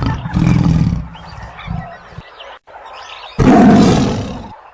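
Tiger roar sound effect: a rough, low roar that ends about two seconds in, then a second loud roar that starts suddenly about three and a half seconds in and fades away.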